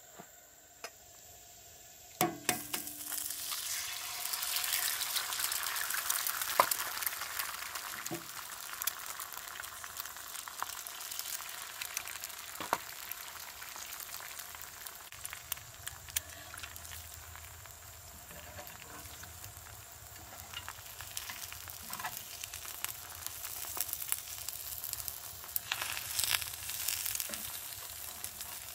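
Eggs sizzling as they fry on a hot cast-iron griddle over a Coleman 425E camp stove. The sizzle starts with a few sharp taps about two seconds in and swells quickly. A metal spatula scrapes near the end as an egg is turned.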